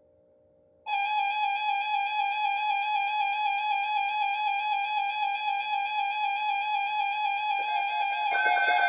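Emergency alert attention tone: a loud, steady electronic alarm tone with a slight regular waver, starting about a second in. More tones join near the end.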